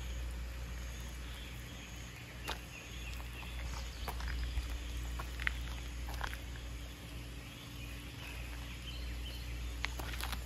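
Quiet outdoor ambience: a steady low rumble with a few short, scattered clicks and rustles.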